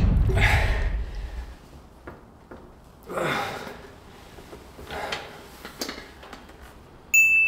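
A man breathing hard with forced exhales, straining through the last reps of a set on a reverse pec deck machine. A loud rushing whoosh fades over the first second, and a sudden high beep sounds near the end.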